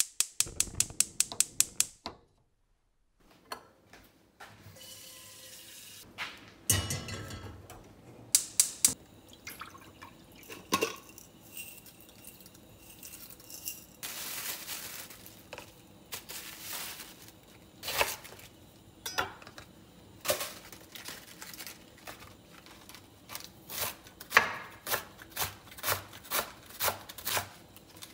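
Kitchen prep sounds: a rapid, even run of sharp clicks that stops suddenly after about two seconds, then scattered knocks, rustling and handling on a counter. Near the end, a knife slicing red cabbage on a wooden cutting board, about two strokes a second.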